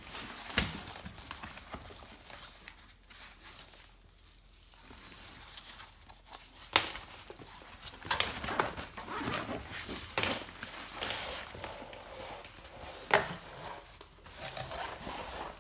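Nylon camera backpack being handled and unzipped: fabric rustling and rubbing, a zipper being drawn open, and a few sharp clicks of its straps and fittings.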